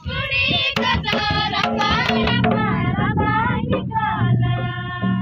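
Girls and children singing a Santali Sohrai song together, with barrel-shaped hand drums struck in rhythm. Past the middle the voices settle into long held notes.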